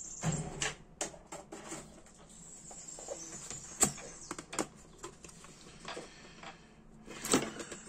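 Scattered light clicks and knocks of a clear plastic compartment box of small spare parts being handled and set down on a workbench, with two sharper clacks, one about four seconds in and one near the end.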